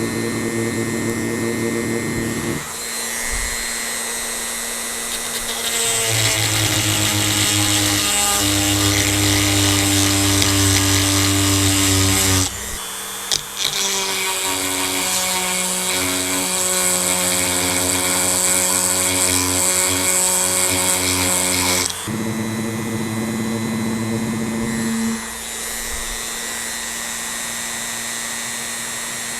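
Dremel 3000 rotary tool running at medium speed, its sharpening stone grinding the cutter teeth of a chainsaw chain. The motor whine shifts in pitch as the stone bears on a tooth, and the grinding is louder in two long stretches in the middle with a brief break between them.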